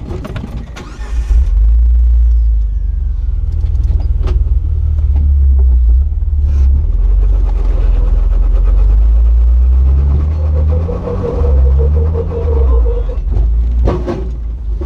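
Jeep engine running under load while crawling over rocks, with revs rising and falling about ten seconds in and a few sharp knocks.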